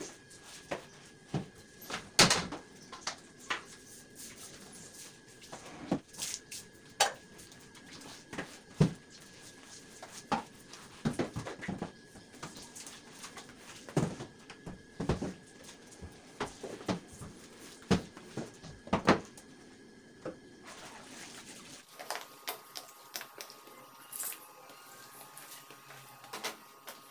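Floor squeegee on a wooden handle pushing water across wet floor tiles: irregular knocks and scrapes as it strikes and drags on the tiles, roughly one a second, loudest about two seconds in.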